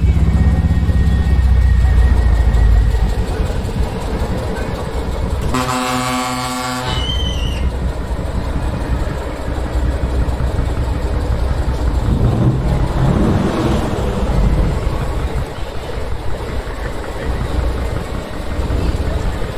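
Heavy truck engines rumbling, with one air-horn blast of about a second around six seconds in.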